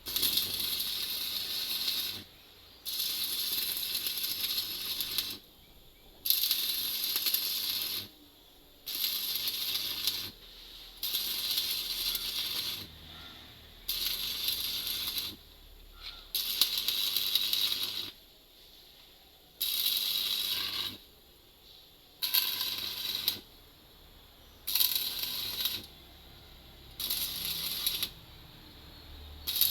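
Stick (arc) welding: the electrode's arc crackles and hisses in about a dozen bursts of one to three seconds with short breaks, as a bead is run joining thick iron to a thin tube.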